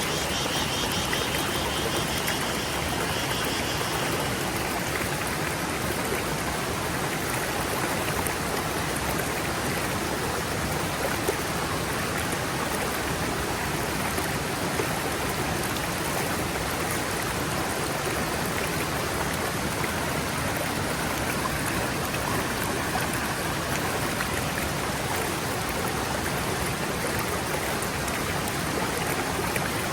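Forest stream flowing over rocks: a steady, even rush of running water. For the first few seconds a faint high pulsing sound rides above it, then fades out.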